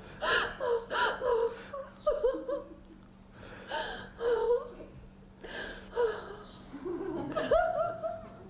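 A person's voice making short, high, breathy non-speech sounds with sliding pitch, about six bursts with pauses between.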